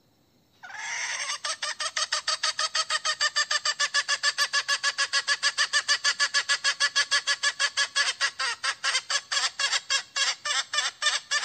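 A junglefowl hen calling to attract a rooster: a rapid, even string of clucking notes, about six a second, kept up for some ten seconds and breaking off abruptly.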